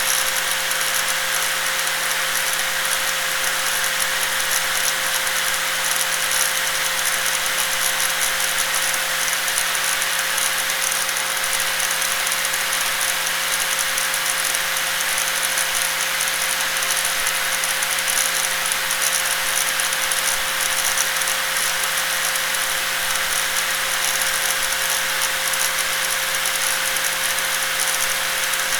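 Electric angle grinder running continuously at steady speed: a constant motor whine with a harsh, hissing rattle that never changes.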